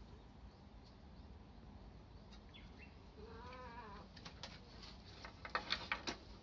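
A short, wavering animal call about three seconds in, followed by several sharp clicks near the end.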